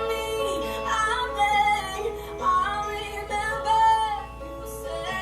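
A woman singing a pop song over instrumental backing, holding a note with a wavering pitch about four seconds in.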